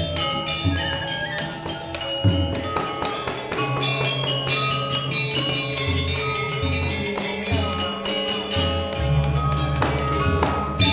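Balinese gamelan ensemble playing: many bright metallophone notes ringing in quick succession over low, recurring gong and drum strokes.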